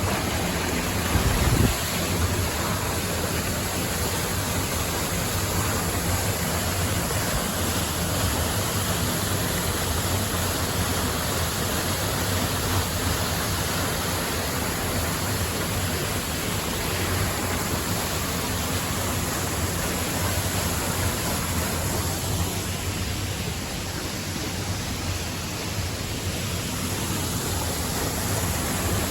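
Waterfall, the falling water rushing in a steady, unbroken noise. A brief low thump comes about a second and a half in.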